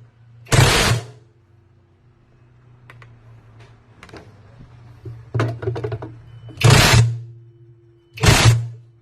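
A motor-driven machine run in short bursts, each under a second, with a low hum in every burst and a faint steady hum between them.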